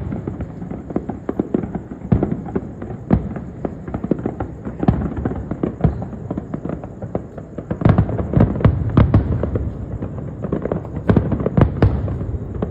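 Fireworks display: a dense run of booms and sharp bangs over a continuous rumble, getting busier and louder about eight seconds in.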